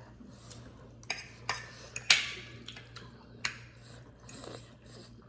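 Forks and spoons clinking and scraping against dishes during a meal: a few separate sharp clinks, the loudest about two seconds in.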